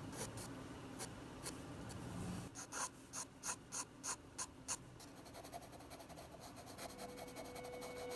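Pencil scratching on paper in short sketching strokes, faint, with a quick run of sharp strokes about three a second in the middle, then softer continuous shading. A faint steady tone comes in near the end.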